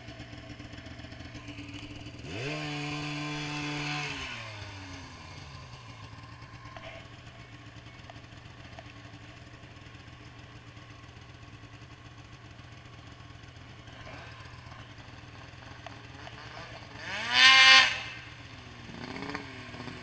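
Snowmobile engines idling, with a throttle rev that rises and falls about two seconds in, and a sharp, louder rev near the end.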